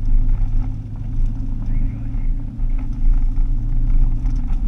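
Car engine and tyre noise heard from inside the cabin while driving on a dirt road: a steady low drone, with a few light ticks and rattles scattered through it.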